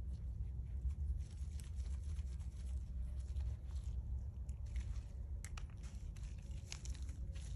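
Small clicks and rustles of gloved hands handling a hydraulic throwout bearing and its plastic fittings, with a few sharp ticks in the second half as a metal pick tool is worked at a fitting to take its O-ring off. A steady low hum runs underneath.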